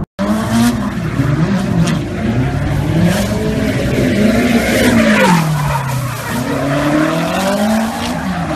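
Drift car's engine revving up and down repeatedly as it slides sideways, over the rushing screech of the spinning rear tyres. The sound starts abruptly after a split-second gap.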